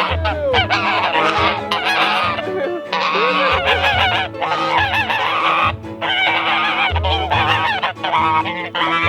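Domestic geese honking over and over, several calls overlapping, with background music underneath.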